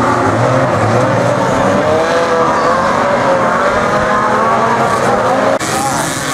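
Several banger-racing saloon cars' engines revving hard together with tyre noise, the pitch of the engines wavering up and down as the cars race and spin their wheels.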